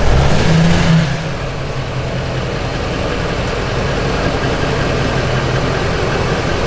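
Lifted Duramax diesel pickup's engine running at low speed as the truck creeps forward, a little louder in the first second and then steady.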